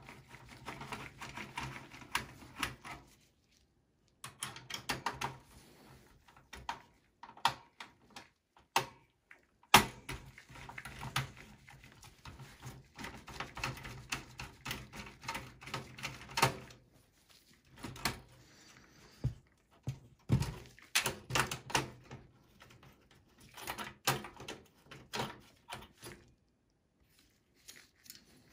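Screwdriver and gloved hands working a desktop PC's CPU heatsink-fan cooler loose and lifting it off the motherboard: a run of irregular metal-and-plastic clicks, taps and rattles, with one sharp knock about ten seconds in.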